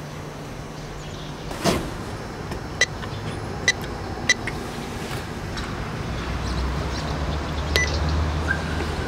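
Short electronic beeps of a building's door-entry intercom keypad as its buttons are pressed, after a single thump. A low rumble builds in the second half.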